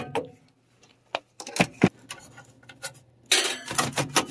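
Galvanized sheet-metal flue pipe being worked loose from a furnace inducer: a few sharp clicks and taps, then a scraping rattle of metal from about three seconds in.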